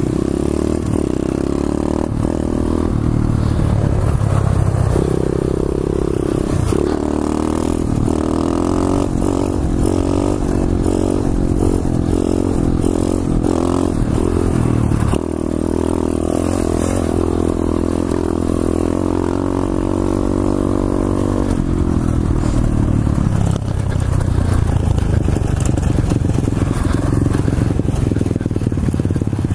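Pit bike engine heard close up from the rider, revving and pulling under way, its pitch rising and dropping several times with the throttle and gear changes.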